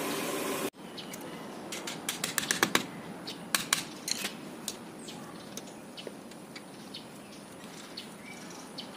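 Pliers working at the drive shaft nut in the centre of a car's steel front wheel hub: a quick run of light metallic clicks and ticks, then a few scattered ones. Before that, a brief steady hiss cuts off suddenly.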